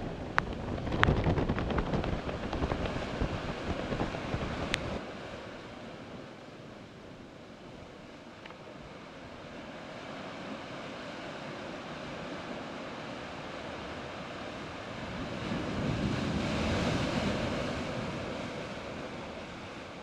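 Ocean surf breaking and washing over rocks at the foot of a sea cliff, with wind buffeting the microphone. It is loudest in the first few seconds, where a few sharp clicks cut through, then eases and swells again as another wave breaks about fifteen seconds in.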